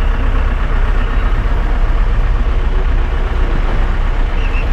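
Vehicle driving: a steady engine and road rumble heard from inside the cabin.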